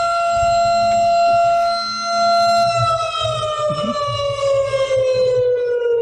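Air raid siren sound file played as the Raspberry Pi motion alarm's alert, signalling a detected intruder. It is a loud, steady wail that begins falling in pitch about three seconds in and winds down.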